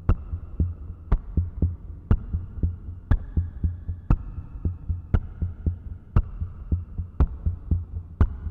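Background music with a steady beat, about two beats a second, with a sharper hit on every second beat and faint held tones above.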